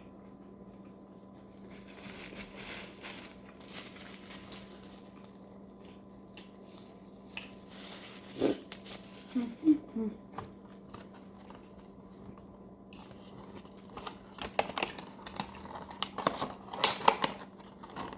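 Close-up eating sounds: small clicks, crinkles and mouth noises from chewing fast food and handling its packaging, getting busier near the end, over a steady low hum.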